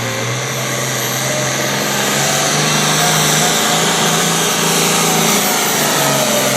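9,000-pound pro farm pulling tractor's diesel engine running flat out, near its 3,500 RPM limit, as it drags the weight-transfer sled down the track. It grows louder about two seconds in.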